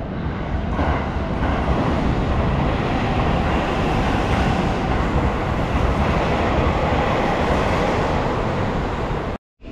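A Seibu 001 series Laview limited express electric train passing close by a station platform at speed. The steady noise of wheels on rail and rushing air swells about a second in, holds loud, and cuts off abruptly near the end.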